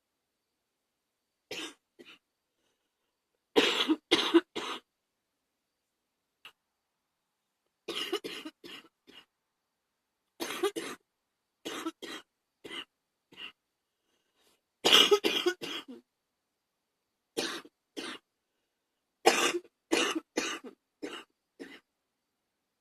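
A woman's wet, chesty bronchitis cough, coming in fits of several coughs in quick succession with short silent pauses between them. The hardest fits come about four seconds in and again about fifteen seconds in.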